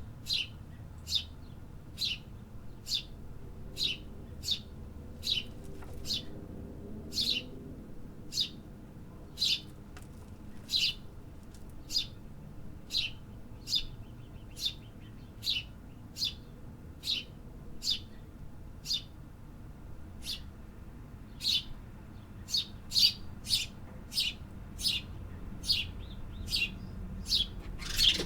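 A small city bird chirping over and over in short, sharp single chirps, about one to two a second, growing louder and quicker in the last few seconds, over a faint low urban rumble.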